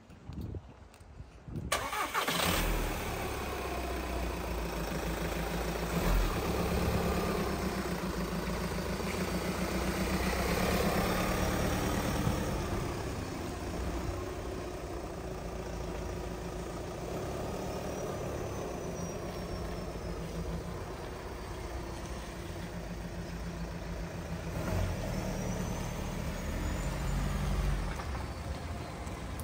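Volkswagen T5 2.0 TDI four-cylinder turbodiesel starting about two seconds in, then running as the van drives off, picking up under throttle a few times.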